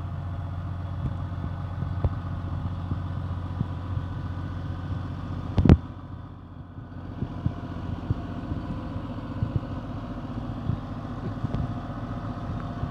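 Log skidder's diesel engine running steadily, with small twig and brush crackles close by and one loud sharp snap about halfway through.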